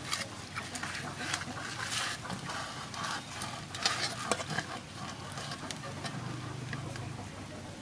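Hands working herbs into a whole giant snakehead fish in an aluminium basin: irregular rustling with scattered light clicks and taps against the metal.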